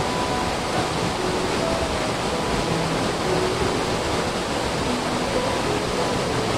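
Steady rushing of a small waterfall plunging into a rock pool.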